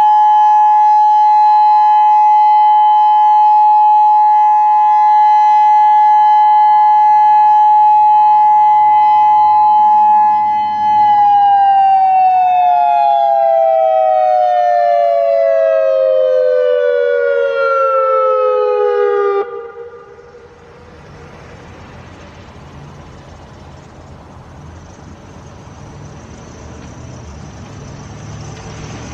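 Federal Signal Modulator 6024 electronic outdoor warning siren sounding its steady 'Full Alert' tone, a chord of two close pitches. About eleven seconds in the pitch starts falling in a slow wind-down, and the siren cuts off suddenly after about eight more seconds, leaving faint outdoor background.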